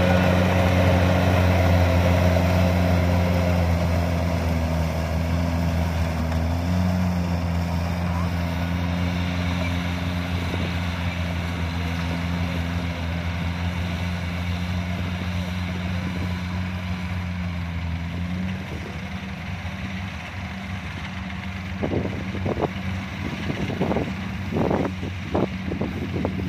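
Kubota DC-70 combine harvester's diesel engine running steadily under load while it cuts and threshes rice, growing fainter as the machine moves away.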